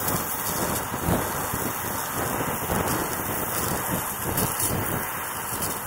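TIG welding arc from a Hotbox TIG-200 inverter welder, a steady hiss with irregular crackle, as the torch is weaved along the joint to fuse the metal without filler rod.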